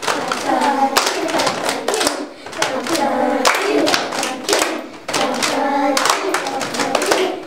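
A group of children clapping their hands in rhythm while singing together, their voices and claps ringing in a small room.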